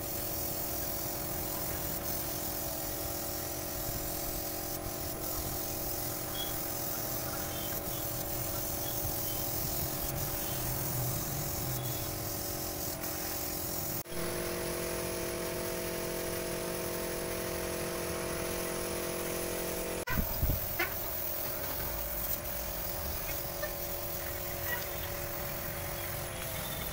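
Compressed-air paint spray gun hissing steadily as it sprays, over the steady hum of the air compressor feeding it. A few loud knocks about two-thirds of the way through.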